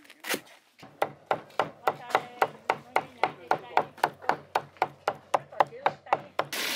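A large knife chopping food on a cutting board in steady strokes, about three or four a second. Near the end the chopping gives way to a steady hiss.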